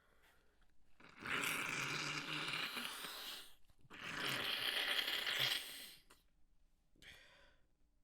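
A person blowing their nose after a sneezing fit: two long blows of about two seconds each, then a short third one near the end.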